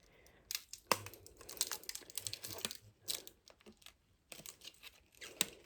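Protective plastic film being peeled off a graphics card: irregular crinkling and tearing crackle with small sharp clicks, pausing briefly partway through.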